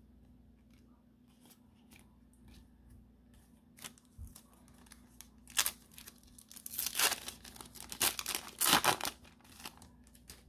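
A Pokémon 151 booster pack's foil wrapper being torn open by hand, in several loud ripping and crinkling bursts from about halfway in. Before that come a few faint clicks of cards being handled.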